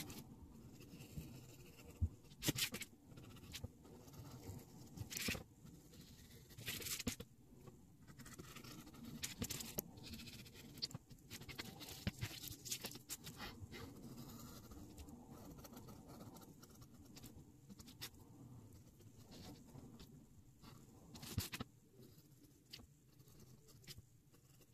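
Hobby knife blade scratching through sticker paper against a plastic cutting board in many short, irregular strokes, with the paper sheet rustling as it is moved and turned.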